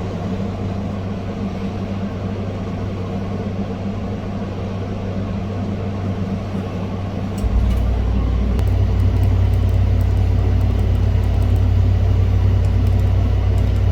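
Steady low machine hum, jumping louder and deeper about seven and a half seconds in, with a few faint ticks.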